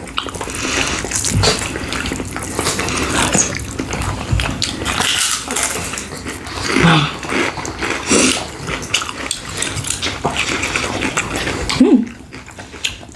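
Close-miked chewing and lip-smacking while eating a dinner of ribs in sauce, rice and beetroot salad, as a steady run of dense mouth clicks and smacks.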